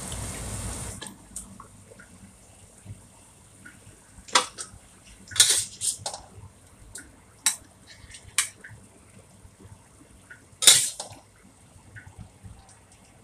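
Metal spatula scraping and clanking against a stainless steel wok and a ceramic plate as stir-fried food is scooped out, with a string of sharp clanks, the loudest about four, five and a half and ten and a half seconds in. A short hiss in the first second.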